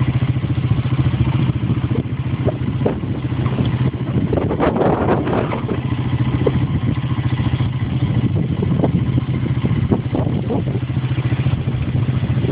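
A motor vehicle engine running steadily at low revs, with irregular knocks and rattles over it in the middle few seconds.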